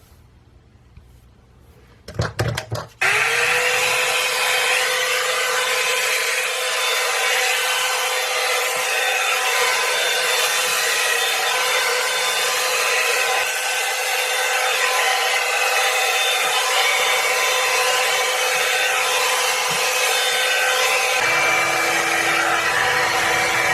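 Revlon One-Step hot-air brush dryer switched on after a few knocks from handling, its motor spinning up with a short rising whine and then blowing steadily with a constant whine over the rush of air. A lower hum joins in near the end.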